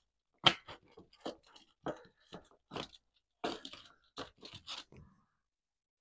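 Gloved hands patting and pressing a raw ground beef and pork meatloaf into a squared loaf on a metal tray: a dozen or so short, wet pats and squishes, stopping about five seconds in.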